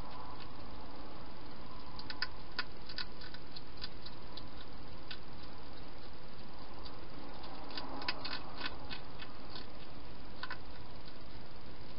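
Wild hedgehog eating from a bowl: irregular small crunching clicks of chewing, in two clusters about two seconds in and about eight seconds in, over a steady hiss.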